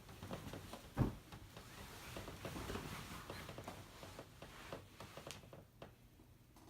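Quiet rustling and handling noise with scattered light taps and one louder thump about a second in.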